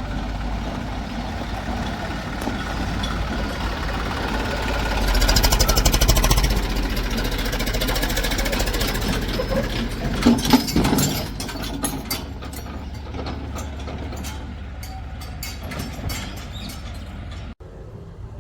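Diesel engine of heavy machinery running, growing louder to a peak about five seconds in and then settling. There are a few sharp knocks around ten seconds in, and the sound drops off suddenly near the end.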